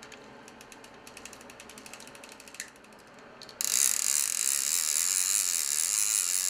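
Multiplier fishing reel being worked by hand: its ratchet clicks evenly, about ten clicks a second. About three and a half seconds in, a much louder, continuous high-pitched whirr from the reel's mechanism cuts in suddenly and holds steady.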